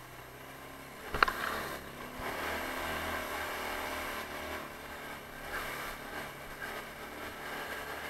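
Taotao 150cc ATV's single-cylinder engine running as the two-wheel-drive quad pulls through mud and on up the trail, working harder from about two seconds in. A single sharp knock sounds about a second in.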